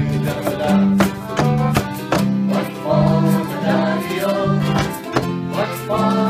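Live folk music: a ukulele strummed in a steady rhythm, a harmonica in a neck rack, and a piano accordion playing an alternating two-note bass, with a woman singing along.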